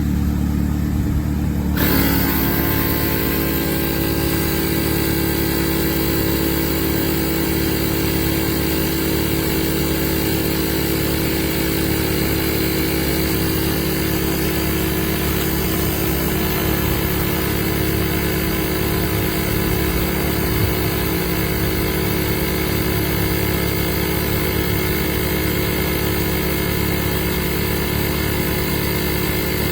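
Portable 12V tire inflator's compressor running with a steady motor buzz, its sound filling out with a higher hiss and whine about two seconds in.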